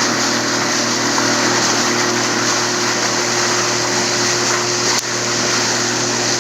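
Motorboat engine running steadily, with a constant hiss over it. A brief click about five seconds in.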